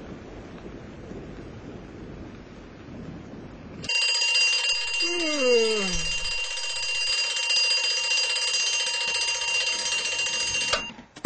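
A steady hiss for about four seconds. Then a loud bright ringing starts abruptly, holds steady for about seven seconds with a falling tone over it about a second in, and cuts off suddenly.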